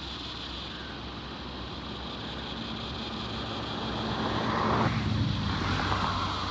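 A vehicle passing by: a steady low engine hum swells to its loudest about five seconds in, then fades, over a steady high hiss.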